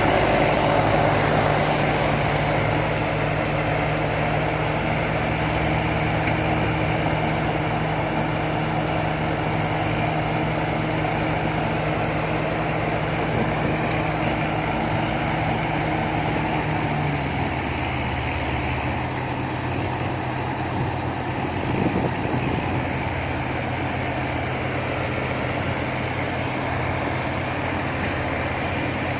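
Combine harvester engine running steadily. About two-thirds of the way through, its pitch drops and settles, and a thin high whine joins it.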